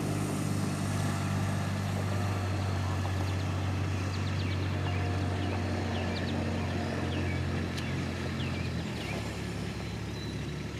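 An engine running steadily with a low hum, its note dropping lower near the end, with a few short bird chirps over it.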